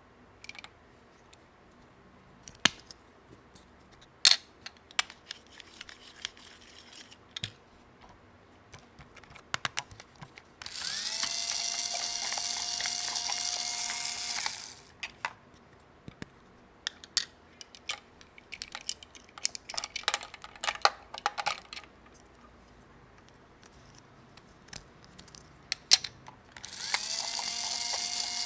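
Small plastic toy parts clicking and tapping as they are handled, with a small electric motor whirring steadily twice, about four seconds each time, the second starting near the end.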